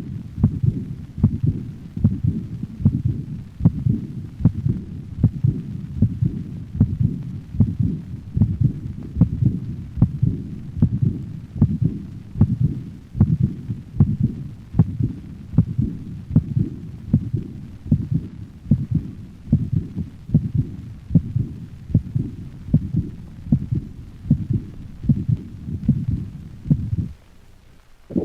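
Dog's heart sounds: a repeating beat with a diastolic murmur that starts at the second heart sound and fades after its onset, the murmur of aortic insufficiency. The beats stop about a second before the end.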